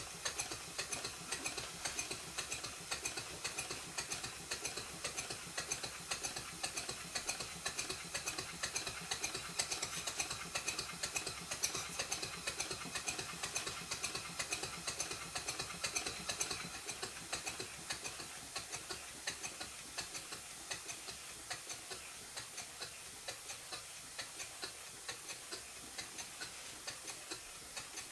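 Stuart Twin Victoria model twin-cylinder steam mill engine running, its exhaust beats and moving parts making a rapid, regular ticking. A little past halfway the ticking becomes quieter and more widely spaced, as the engine runs slower.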